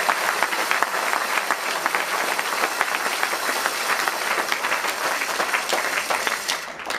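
Arena audience applauding a won point, a dense patter of many hands clapping that thins out and dies away near the end.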